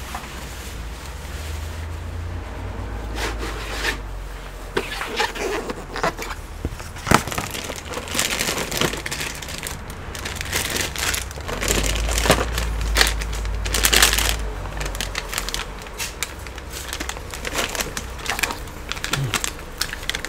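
Clear plastic bags crinkling and rustling as they are handled and rummaged through, with sharp irregular clicks of laptop RAM sticks knocking together inside; busiest through the middle.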